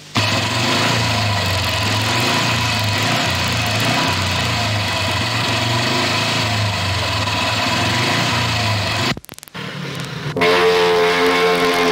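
Single-cylinder speedway motorcycle engine running steadily at a fast idle. It breaks off briefly about nine seconds in, and a higher-pitched sound follows near the end.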